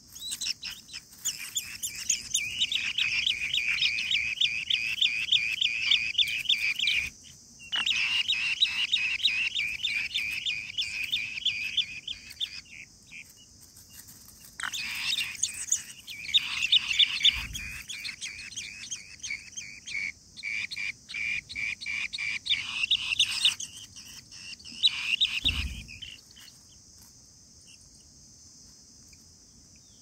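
Asian green bee-eater nestlings begging for food with fast trains of high chirps, in two long bouts that fall quiet near the end, over a steady high drone of insects.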